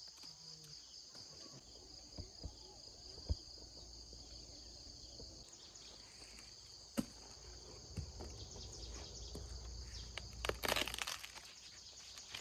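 Steady high-pitched drone of insects, with scattered knocks and rustles and a cluster of louder ones near the end.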